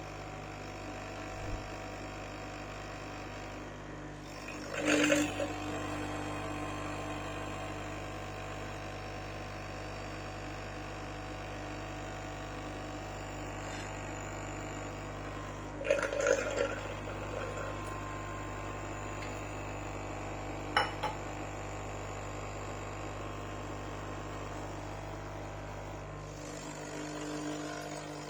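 Nescafé Dolce Gusto capsule coffee machine's pump running steadily with a humming buzz while it dispenses, broken by three short louder bursts of spluttering noise. The hum stops near the end.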